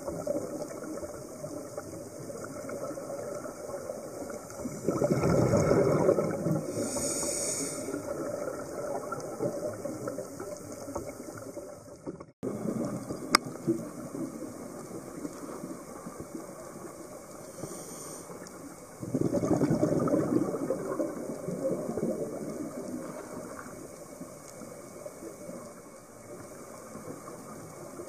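Scuba diver breathing through a regulator underwater: short hissing inhales and two longer rushes of exhaled bubbles, about five and nineteen seconds in, over a steady underwater hiss. A brief gap in the sound near the middle.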